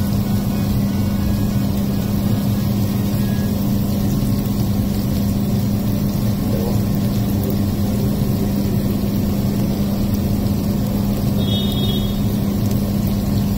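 Steady low mechanical drone with a constant hum, from running machinery at a street-food griddle. It goes on unchanged throughout.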